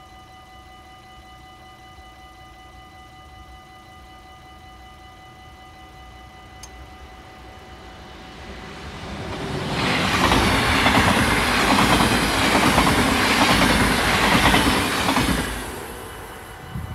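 Level-crossing bell ringing steadily while a double-deck electric passenger train approaches, then passes close by with a loud rushing rumble and wheel clatter for about five seconds before fading away.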